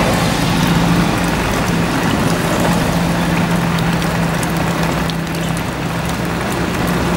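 Steady rain noise with fine pattering ticks, over a constant low hum.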